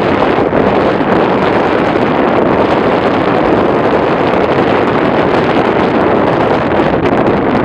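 Loud, steady wind blowing across the microphone, an unbroken rush with no pauses.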